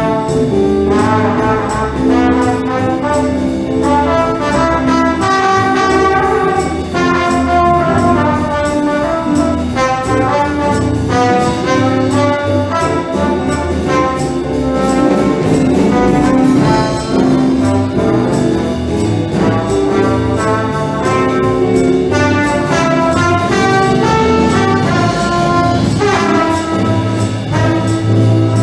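A band's brass section, with trumpets and trombones, playing a swing tune over a steady ticking beat.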